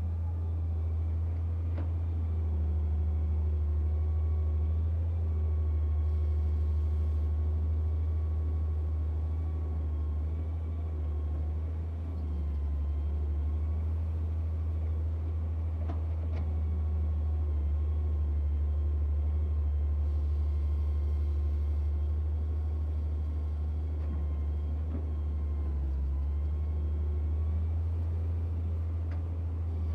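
Daewoo excavator's diesel engine running steadily with a deep hum, with a brief dip about twelve seconds in and a few faint clicks.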